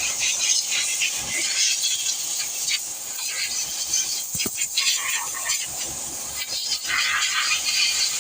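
Pressure washer jet spraying water onto a bike: an uneven, hissing spray that keeps rising and falling in strength.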